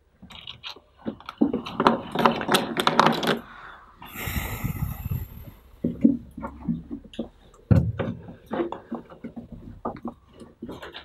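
Rustling and clicking close to the microphone, densest in the first few seconds, with a short rush of noise about four seconds in and scattered clicks after it.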